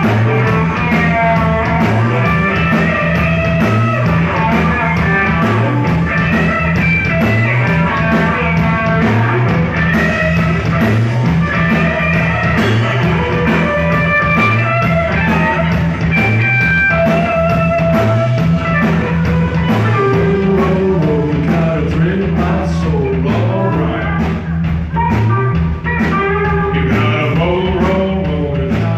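Live rock band playing: electric guitars, bass guitar and a drum kit keeping a steady beat, with a singer's voice over the top.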